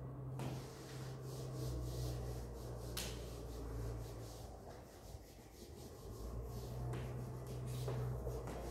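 Chalk writing being rubbed off a blackboard in repeated wiping strokes, a dry scratchy rubbing over a steady low hum.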